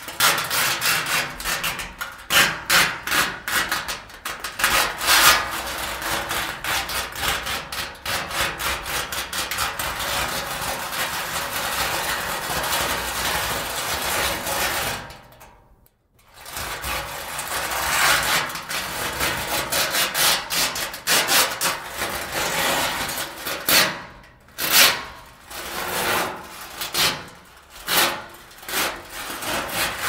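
Empty steel barrels being banged, scraped and rolled, a fast run of ringing metal hits and scrapes with a lot of reverberation. About halfway through the sound fades out for a moment, then starts again.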